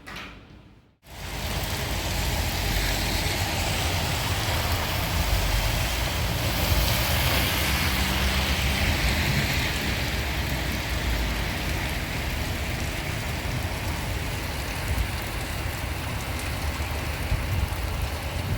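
Steady heavy rain falling and splashing on surfaces, starting abruptly about a second in, with a low rumble underneath.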